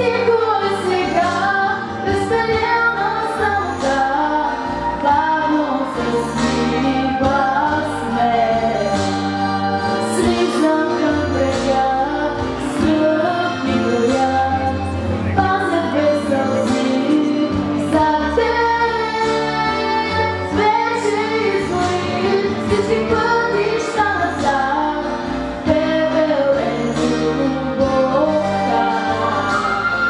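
A girl singing a Bulgarian song into a handheld microphone over instrumental accompaniment, her voice carrying the melody throughout.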